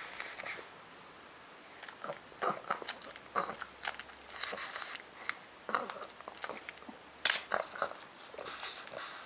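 A pug eating: irregular chewing and smacking with short sharp clicks, the loudest about seven seconds in.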